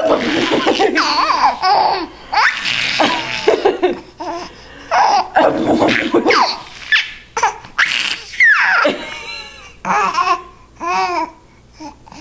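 A baby laughing hard in repeated bursts of breathy giggles and belly laughs, with short pauses between them while he is nuzzled and tickled. The last peals are shorter and more sing-song.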